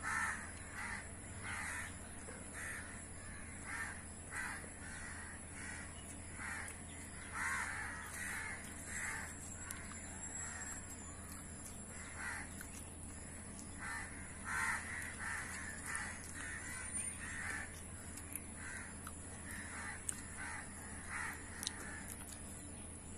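Crows cawing over and over: many short, harsh caws at irregular intervals, about one a second, over a steady low background hum.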